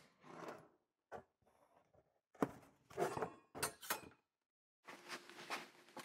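Faint hand-handling noises from the casing of an electric van's integrated HVAC module being opened up: short scrapes and rustles with a sharp click about two and a half seconds in.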